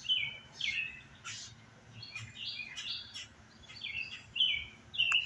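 Birds chirping: a run of short calls, about two a second, many of them dropping in pitch.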